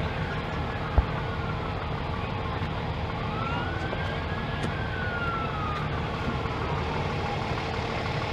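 Emergency-vehicle siren wailing, its pitch slowly rising and falling, over the steady low rumble of street traffic and an engine. A single sharp knock about a second in.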